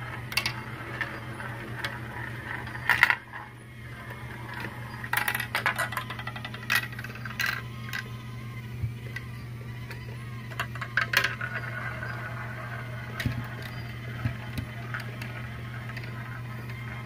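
Glass marbles rolling and clattering through plastic marble-run track and funnels, with irregular sharp clicks as they drop between pieces. A steady low hum runs underneath.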